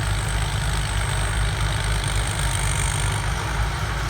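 Turbocharged diesel engine of a rice combine harvester running steadily, with a thin high whine held above the low engine rumble.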